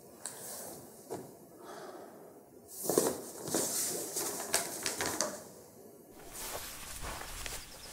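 A pen scratching across paper in short, uneven strokes as a man writes by hand, loudest about three seconds in. About six seconds in it gives way to an open outdoor background with a low rumble.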